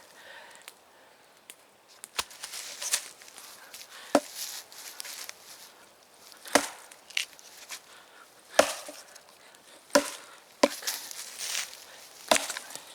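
Axe chopping into a log: about seven sharp, separate blows, one every second or two.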